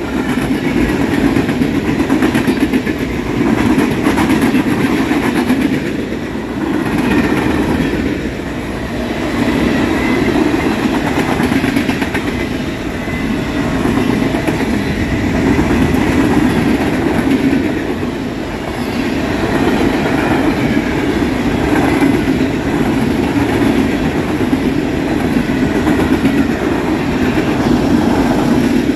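Freight cars of a CSX manifest train rolling past: a loud, steady rumble of steel wheels on the rails with clickety-clack over the joints, swelling and easing every few seconds as the cars go by.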